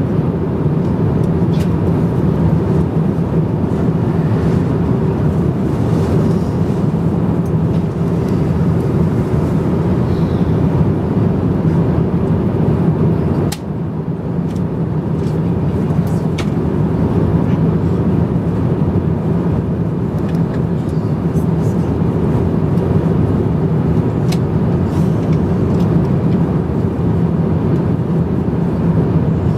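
Steady airliner cabin noise in cruise: the Airbus A350-900's engine and airflow noise heard from an economy seat. The noise dips briefly about halfway through, and a few faint clicks come over it.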